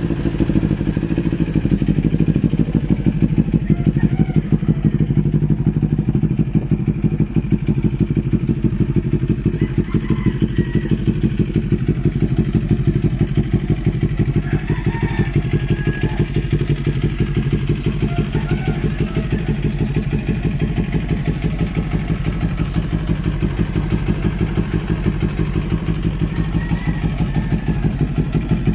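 Kawasaki Ninja 400 parallel-twin engine idling steadily through an Akrapovic exhaust, a loud, even pulsing note.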